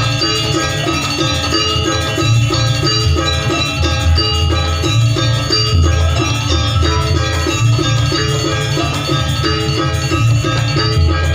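Janger Banyuwangi music from a live gamelan ensemble: metallophones ring a fast repeating figure over drums and a heavy bass.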